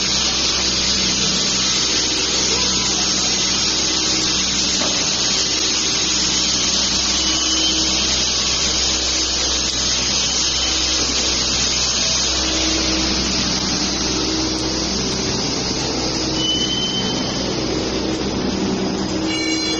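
Mini noodle-making machine running: a steady electric motor hum under a constant mechanical whir.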